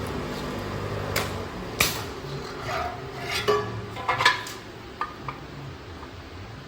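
Sharp metallic clinks and knocks of aluminium pieces against metal machinery, a handful of them clustered in the middle, over a machine's steady hum that fades after about two seconds.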